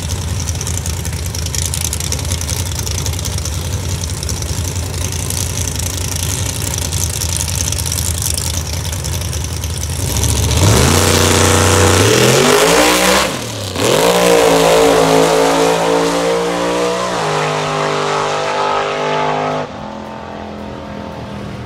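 Classic drag car's engine idling steadily at the starting line, then launching at full throttle about ten seconds in. The engine pitch climbs, breaks off briefly and climbs again twice as it shifts gears, then the sound drops away near the end.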